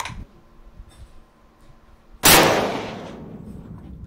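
A single shot from a Savage AXIS II XP bolt-action rifle in .223, about two seconds in, with a ringing tail that dies away over most of a second under the range's roof.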